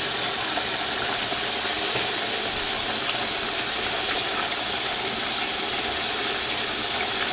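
Chicken pieces frying in hot ghee, a steady sizzle.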